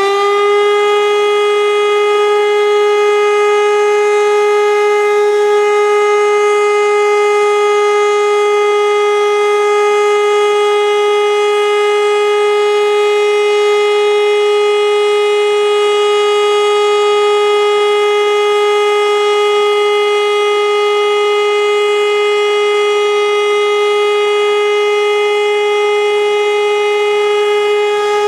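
E57 electromechanical civil defence siren sounding a loud steady tone at full pitch, having just finished spinning up. This continuous tone is the German all-clear (Entwarnung) signal.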